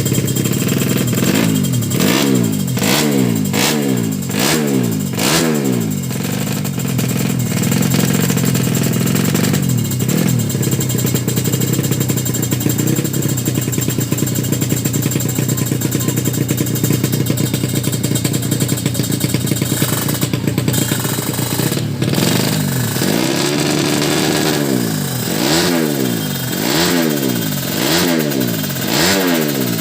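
Drag-race motorcycle engine revved in quick throttle blips, about one and a half a second. About six seconds in it is held at a steady note for some fifteen seconds, then it is blipped again near the end.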